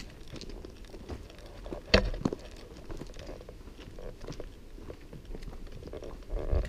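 Hikers' footsteps crunching and scuffing down a dirt forest trail, with backpack gear rustling and irregular clicks, and one sharper knock about two seconds in.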